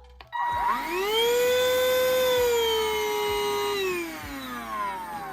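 Whall cordless handheld vacuum's motor starting up, its whine rising quickly to a steady pitch, then slowing with a steadily falling pitch from about four seconds in.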